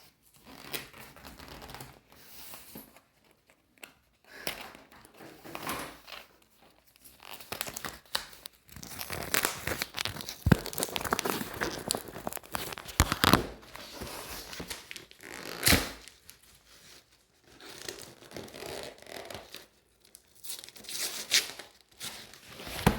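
A cardboard box being cut and torn open: irregular rasps of tearing cardboard and tape, crinkling packing material, and a few sharp knocks in between.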